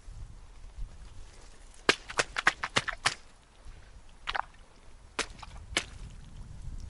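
Footsteps crackling through dry grass and reed stems on a pond bank: a quick run of sharp snaps about two seconds in, then a few single snaps, over a low rumble of wind on the microphone.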